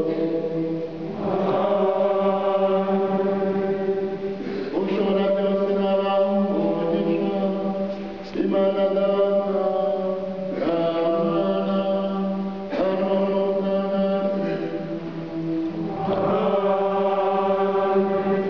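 Choir chanting in long held notes over a steady low note, moving to a new phrase every two to three seconds.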